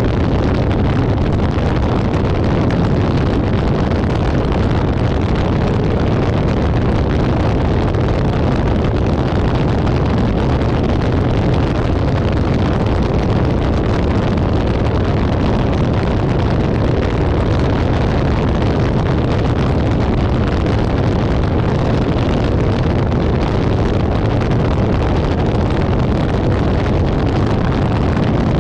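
Steady rush of wind and road noise from a moving car, picked up by a camera mounted on the car's hood, with wind buffeting the microphone.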